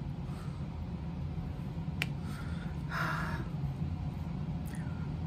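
Small sharp clicks from diamond-painting tools, the drill pen and plastic drill tray being handled: one about two seconds in and a fainter one near the end, with a brief soft hiss around three seconds. A steady low hum runs underneath.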